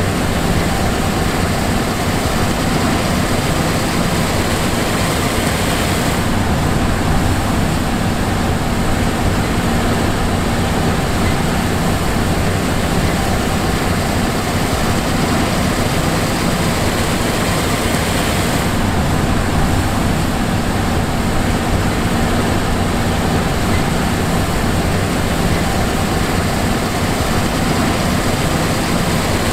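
John Deere S780 combine running steadily: a dense, even mechanical noise with a low hum underneath. The high hiss eases a little about six seconds in.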